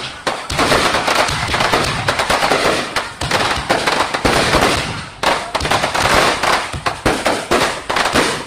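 Aerial fireworks shells bursting in rapid succession: a dense run of bangs and crackle, with a brief lull about five seconds in.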